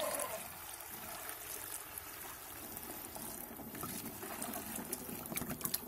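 Diluted liquid fertilizer poured from a bucket through the strainer into a backpack sprayer tank: a steady splashing pour, with a few small clicks near the end.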